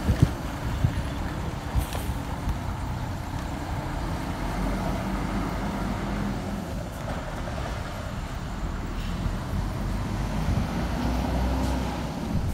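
Three-axle coach bus's diesel engine running as the coach drives away, a steady low rumble.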